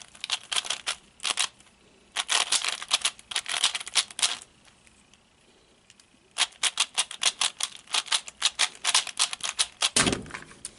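Diansheng 3x3 speedcube being turned fast during a solve: quick runs of plastic clicks and clacks, broken by short pauses. A dull thump comes near the end.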